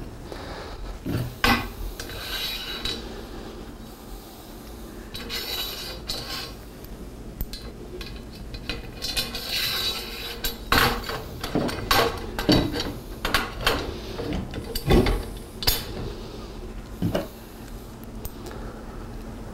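Metal roof-rack brackets and bars being handled, giving irregular clinks and knocks as the brackets are slid into place on the bars, busier in the second half.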